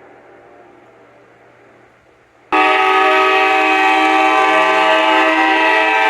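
A multi-chime train air horn starts abruptly about two and a half seconds in and holds one steady, loud chord. Before it, the echo of an earlier horn blast dies slowly away.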